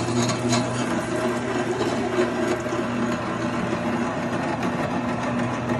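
Electric stainless-steel meat grinder running with a steady motor hum while grinding beans and toasted seeds, with small clicks and crackles as they pass through the screw and plate.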